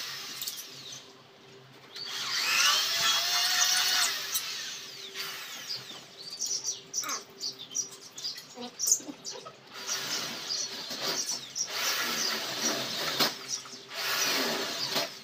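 Cordless drill run in several short bursts on a screen door frame, its motor pitch rising and falling with the trigger, with sharp clicks and taps between the bursts.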